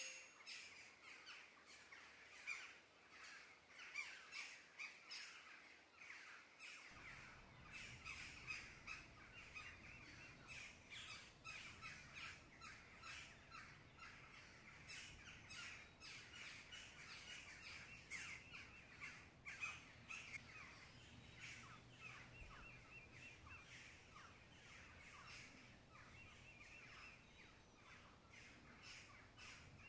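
Tomato and onion sauce sizzling and spitting in a frying pan: a faint, steady crackle of many small pops.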